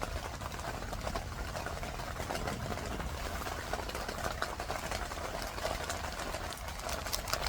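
Rain falling on a tent: a dense, steady patter of drops over a low rumble.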